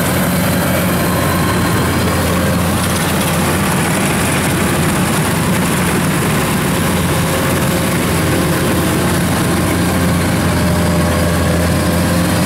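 Kubota DC-93 combine harvester harvesting rice: its diesel engine and threshing machinery run under load with a steady, even drone.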